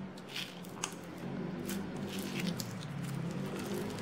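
Clear slime loaded with foam beads being squeezed and kneaded by hand: wet squishing with scattered sharp crackling pops from the beads.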